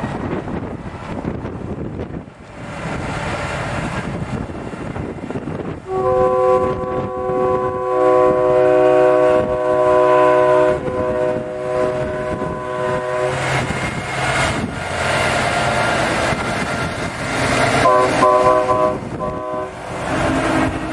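Semi-truck air horns sounding a multi-note chord over truck engine noise: one long blast of about seven seconds starting about six seconds in, then a few short broken blasts near the end.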